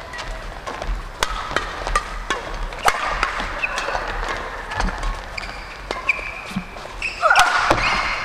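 Badminton rally: sharp racket-on-shuttlecock hits, several strokes close together, mixed with short high squeaks of court shoes on the sports floor. The sound grows louder near the end.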